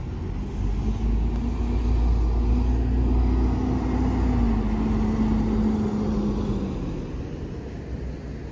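A motor vehicle's engine running with a low rumble. Its tone holds, then drops about halfway through and fades after about seven seconds.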